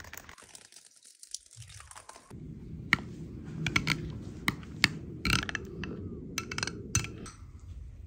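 A metal spoon stirring thick, creamy sauce in a glass bowl: a wet, squelching scrape with several sharp clinks of the spoon against the glass. It starts about two seconds in and stops about a second before the end.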